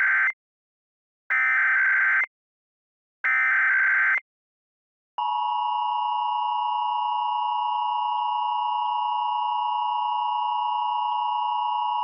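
Emergency Alert System SAME header: the end of one burst of digital data and then two more, each about a second long and spaced about a second apart. About five seconds in, the steady two-tone EAS attention signal starts and holds. The alert is a Required Monthly Test.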